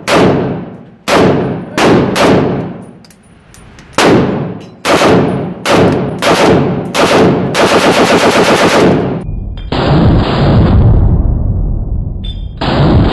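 Select-fire HK G3 7.62 mm battle rifle firing in an indoor range: about nine single shots at uneven intervals, each trailing off in echo, then a short full-auto burst of rapid shots. After the burst a steady, muffled din fills the last few seconds.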